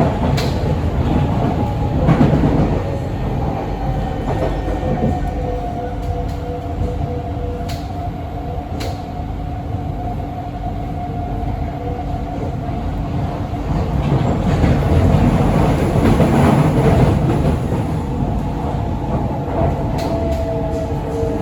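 C151B metro train heard from inside the car as it runs along the track: steady wheel-and-rail rumble with a few sharp clicks, under a thin motor whine that slowly drifts down in pitch. The rumble swells for a few seconds past the middle.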